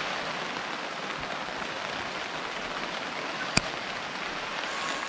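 Steady rain falling on a camping flysheet stretched overhead, with one sharp tap about three and a half seconds in.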